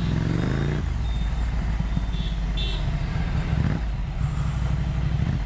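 Ducati Monster 797's 803cc air-cooled L-twin engine running under way, its revs rising over the first second and then holding steady.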